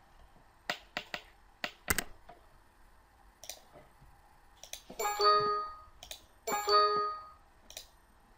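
Scattered computer mouse and keyboard clicks, then two identical Windows alert chimes about a second and a half apart, the loudest sounds, as a software dialog box pops up.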